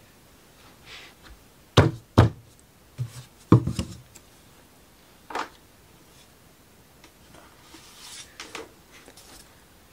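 Thin laser-cut plywood model pieces knocking against a tabletop as they are handled: two sharp knocks about two seconds in, a third a second and a half later, a lighter one in the middle, then faint rustling of the parts near the end.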